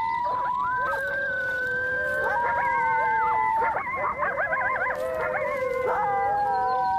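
Coyote pack howling and yipping together: several long howls held at different pitches overlap, broken by many short, quick yips.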